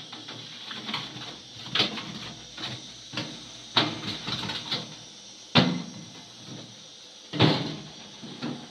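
A series of irregular knocks and clatters, about a dozen, the loudest a little past the middle and about three-quarters through.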